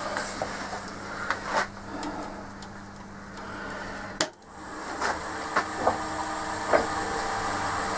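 Clicks and knocks of handling at a woodturning lathe, then a sharp click about four seconds in as the lathe is switched on and its variable-speed motor starts running up, with a steady high whine and growing hum.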